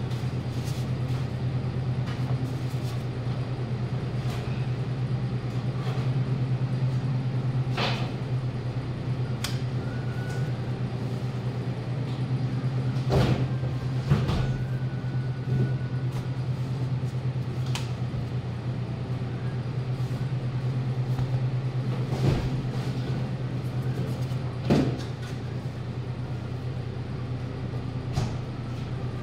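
Steady low machine hum throughout, with a few sharp knocks and clatters, a couple of them close together about 13 and 14 seconds in, as foam meat trays and absorbent pads are handled.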